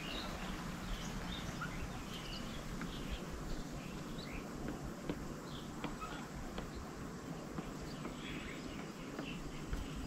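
Birds chirping and calling in short, scattered notes over a steady background hiss.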